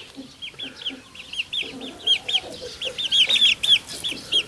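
Young chickens peeping: a quick run of short, high cheeps, several a second, with faint low clucking underneath.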